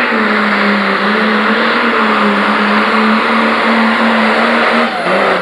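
Turbocharged diesel Pro Stock pulling tractor running at full throttle under load as it drags the weight-transfer sled, a loud, steady, held engine note. The note dips briefly near the end.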